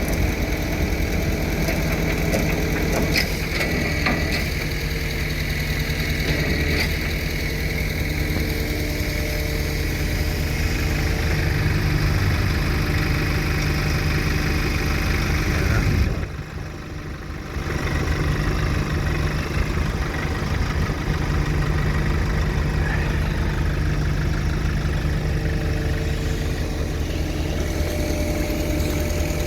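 A vehicle engine running steadily, with a sudden drop in level for about two seconds roughly sixteen seconds in.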